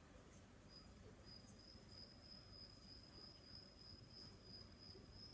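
Near silence: quiet room tone, with a faint, steady, high-pitched trill that starts just under a second in and carries on.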